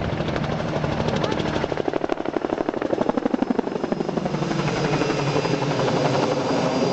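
Low-flying spray helicopter passing close, its rotor blades thudding in a fast, even rhythm, then giving way to a steadier engine whine with a thin high tone from about four seconds in.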